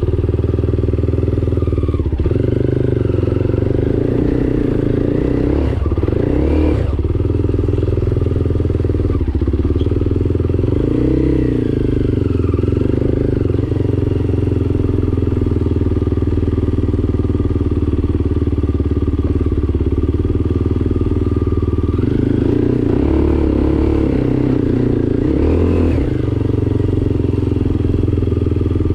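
Enduro motorcycle engine running continuously under changing throttle, its pitch rising and falling with several brief revs.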